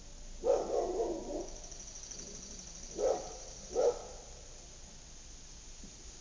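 A dog barking: a quick run of barks about half a second in, then two single barks about three and four seconds in, over a quiet suburban background.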